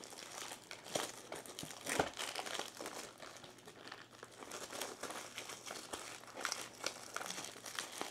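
Clear plastic shrink-wrap crinkling and crackling as it is peeled off a trading card booster box and crumpled by hand, with a few louder crackles about one, two and five seconds in.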